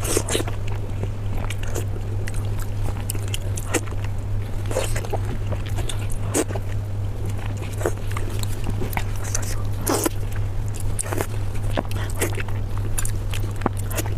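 Close-miked chewing and mouth sounds: irregular wet clicks and crunches a few times a second, over a steady low hum.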